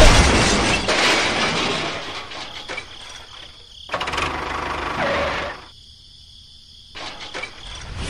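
Loud crash with a breaking, shattering sound as a toy locomotive smashes into a toy tractor and derails, dying away over about two seconds. A shorter rush of noise follows about four seconds in.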